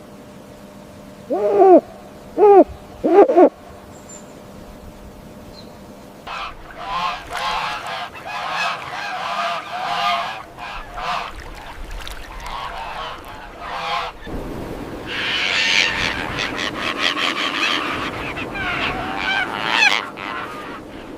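Three loud honking bird calls in quick succession, then a flock of birds honking and calling over one another, growing denser and noisier about two thirds of the way in.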